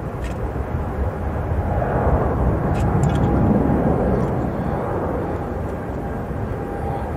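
Jet airliner engines running, a steady rumble with a faint high whine that swells between about two and four seconds in.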